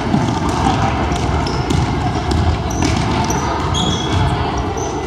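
Basketball being dribbled on a hardwood gym floor during play. Sneakers squeak briefly several times, and spectators chatter in the echoing gym.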